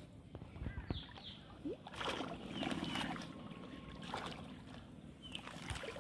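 Shallow water splashing and sloshing in irregular surges, from hands and body moving through it while groping for fish.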